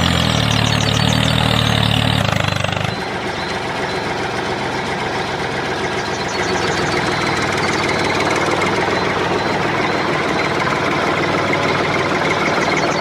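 An engine-like motor running with a fast, rattling knock; its deep low part drops away about three seconds in, and it keeps running.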